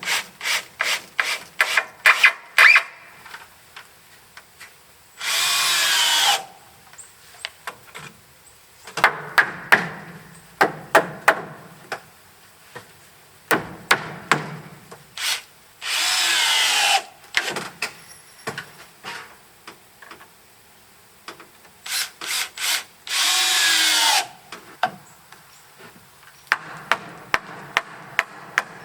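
Cordless drill driving screws into timber in three short runs, its motor pitch bending as it loads. In between come bouts of rhythmic rasping strokes on wood, about three or four a second.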